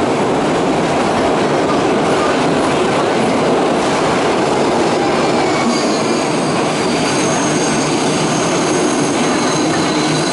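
R62A subway car running through the tunnel, heard from inside the car: a loud steady rumble of wheels on rail. High-pitched wheel squeal comes in about halfway through.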